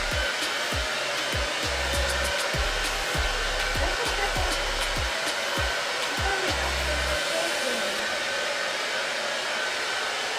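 Hand-held hair dryer blowing steadily, drying a wet dog's coat after a bath.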